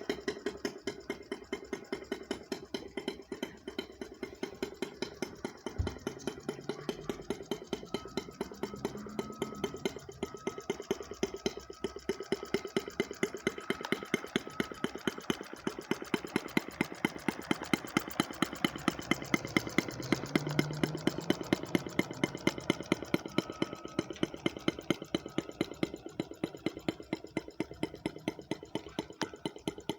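Small gas engine of an RC boat running, with an even train of sharp clicks, about four a second, heard over it.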